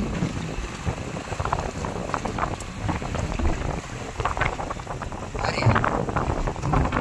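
Water sloshing and splashing against a small boat's hull in uneven bursts, with wind buffeting the microphone.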